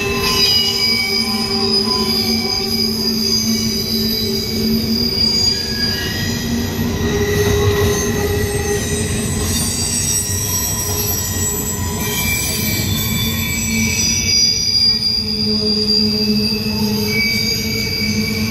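Norfolk Southern intermodal freight train rolling past, its wheels squealing in several steady high tones over a continuous rumble.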